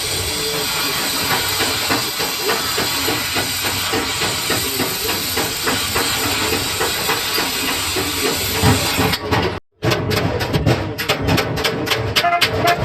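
A loud, steady hiss like air or spray from a workshop tool for about nine seconds, then after a sudden cut, a quick run of evenly spaced sharp taps or knocks.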